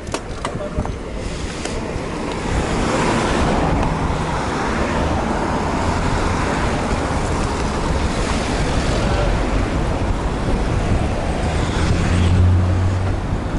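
Wind rushing over the microphone of a camera on a moving bicycle, a loud steady noise that swells about two and a half seconds in, with a brief low hum near the end.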